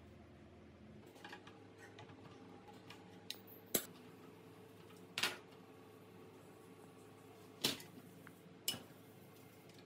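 Metal hand tools clinking and tapping against the Honda Super Cub C50's engine casing during disassembly: a few light ticks in the first three seconds, then four sharp metallic clinks about a second or more apart, over a faint steady hum.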